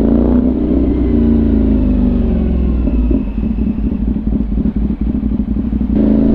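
CFMOTO 450NK's parallel-twin engine through a freshly fitted Orion Ara slip-on exhaust, revving up and then dropping in pitch as the throttle eases off. Over the next few seconds the exhaust gives an irregular crackle, and near the end the engine pulls up again.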